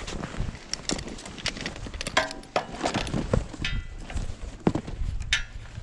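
Footsteps crunching on packed snow, with knocks and a few short metallic clinks as a blue lay-flat hose is handled and fitted to a gas-powered water pump.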